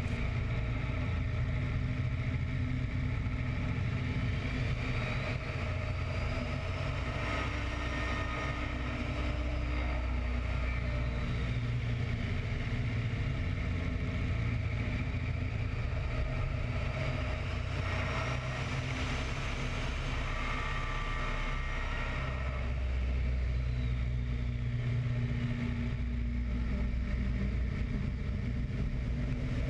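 A biplane's radial engine and propeller running steadily in flight. A higher tone swells up and falls back twice as the aircraft manoeuvres.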